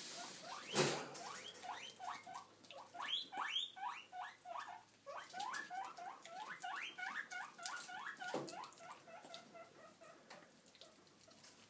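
A kinkajou chewing a chunk of raw cucumber or squash: quick, wet, squeaky bites and smacks at about three to four a second, trailing off near the end. A single sharp knock comes about a second in.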